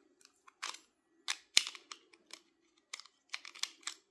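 Short, sharp plastic clicks and taps from handling the NexiGo Aurora Pro projector's remote control, with one louder click about a second and a half in and a quick run of clicks near the end.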